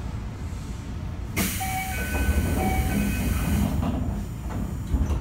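Toei 5300 series subway train with Mitsubishi GTO-VVVF control, heard from inside the car: a steady low running rumble. About a second and a half in, a sudden loud hiss starts and lasts about two seconds, with short steady tones sounding twice over it.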